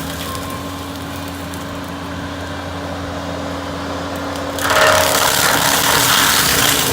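Skid steer engine running steadily under load while its hydro axe mulching head shreds brush and wood. The grinding grows louder about two-thirds of the way in.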